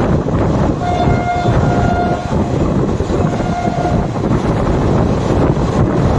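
Horn of a WAP7 electric locomotive sounding three short blasts in the first four seconds, over the steady noise of the train running.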